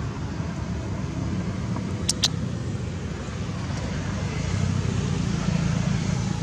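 Steady low outdoor rumble, a little louder in the second half, with two sharp clicks about two seconds in.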